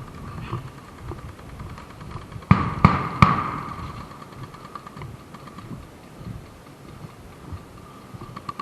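Three sharp knocks in quick succession, about a third of a second apart, each ringing on briefly, over a faint steady high tone.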